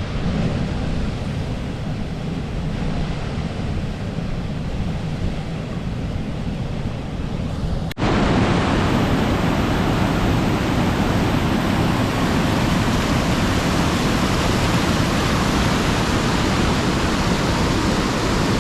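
Rushing water of the Easan Dubha waterfall, a steady even roar. It breaks off abruptly about eight seconds in and comes back louder and fuller.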